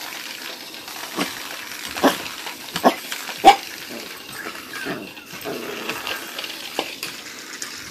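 Miniature pinscher–dachshund mix puppy making a handful of short, sharp noises, mostly about a second apart.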